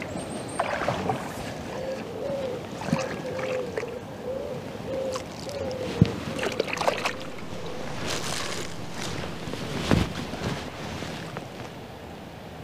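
Fast-flowing river water rushing steadily, with a faint wavering tone for a few seconds and a handful of sharp knocks and handling noises, the loudest about six and ten seconds in.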